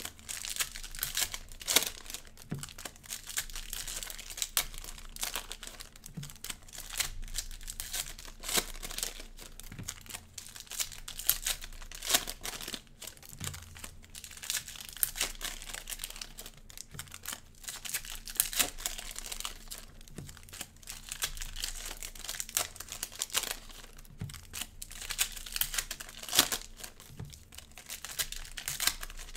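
Cellophane wrappers of Prizm basketball cello packs being handled and torn open by hand: dense, irregular crinkling and crackling with sharper tearing snaps scattered through.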